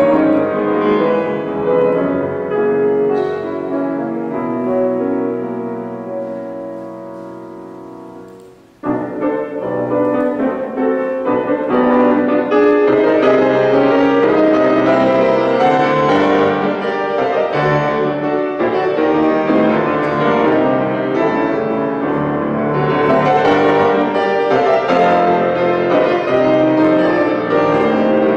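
Steinway grand piano played solo in classical style. A held chord dies away for several seconds, then loud playing starts abruptly about nine seconds in and keeps going with dense chords.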